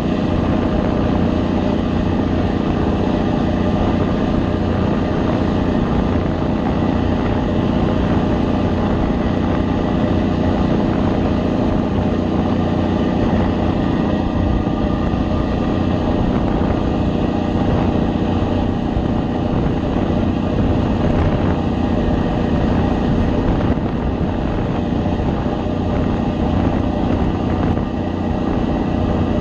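A boat's engine running steadily under way, a constant drone with several even tones, over the rushing of water churned up in its wake.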